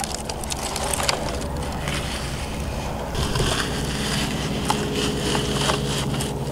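Muddy puddle water splashing and sloshing as a toy excavator's bucket is dug and scraped through it, with small clicks and knocks of the toy, over a steady low rumble.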